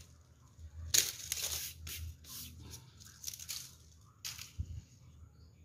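Dry leaves crackling and rustling as they are handled, in a string of short crisp bursts, the loudest about a second in. A soft low thump follows near the end.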